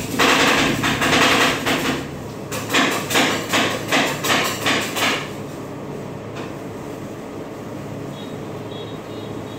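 Metal spatulas chopping marshmallow ice cream mix on the frozen steel plate of a rolled ice cream machine: rapid clacking strikes of steel on steel, spacing out to about two a second and stopping about five seconds in. After that, softer scraping as the mix is spread thin, over a steady low hum.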